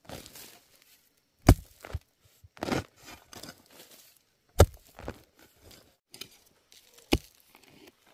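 A hoe chopping into soil around a bamboo shoot: three sharp strikes, each about two and a half to three seconds apart, with crunching and scraping of loose earth between them.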